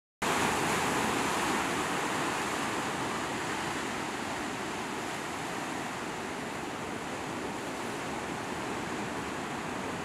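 Ocean surf washing and foaming through rocky tide pools: a steady rush of moving water that cuts in suddenly just after the start, loudest at first and then settling a little.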